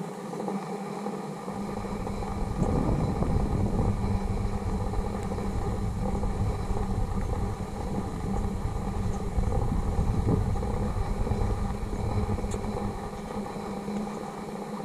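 Wind buffeting a camera microphone, a gusty low rumble that sets in about a second and a half in, over a steady low hum.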